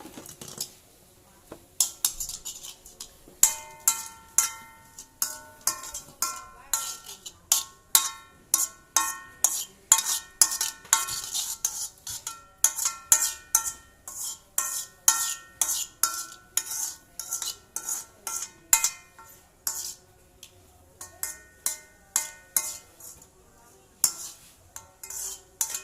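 A metal utensil stirring in a metal pan, knocking against it again and again, about two clanks a second with a few short pauses. Each knock rings briefly.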